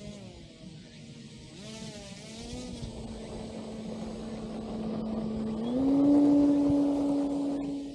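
Electric RC airplane's motor and propeller whining steadily and growing louder, stepping up in pitch about six seconds in as the throttle opens, then dropping away near the end.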